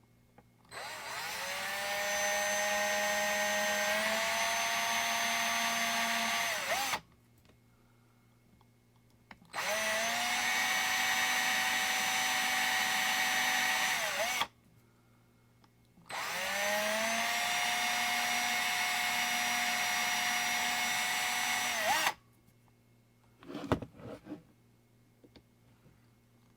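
Small electric drill drilling into a diecast model car, run in three bursts of about five to six seconds, each whining up in pitch as it spins up and dipping as it stops. A few light knocks follow near the end.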